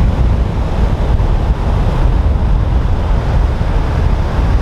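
Surf breaking and washing on a sandy beach, with wind buffeting the microphone: a steady, loud rushing noise heavy in the low rumble.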